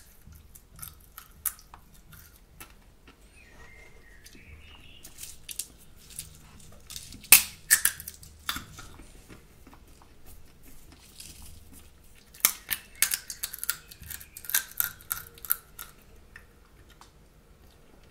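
Roasted in-shell sunflower seeds being cracked open between the teeth: sharp, crisp snaps in quick clusters, loudest about seven seconds in and again in a run from about twelve to fifteen seconds, with quiet chewing in between.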